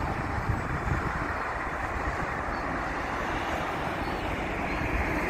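Steady, muffled road traffic noise.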